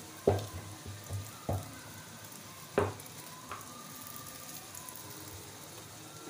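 Mughlai paratha shallow-frying in mustard oil on a tawa, sizzling steadily, while a metal spatula presses it down and knocks sharply against the pan four times in the first few seconds.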